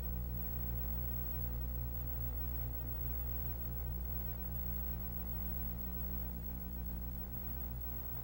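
Steady low electrical hum with a ladder of even overtones and a faint hiss over it, unchanging throughout.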